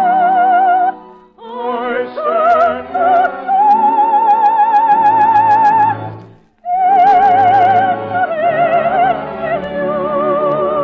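Operatic singing with a wide vibrato over an orchestra, long held notes broken twice by brief pauses.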